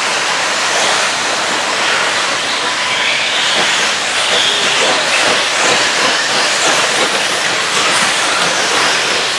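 A pack of 1/8-scale electric off-road RC buggies racing off the start on a dirt track: a steady hiss of tyres and motors, with higher whines swelling now and then as cars pass.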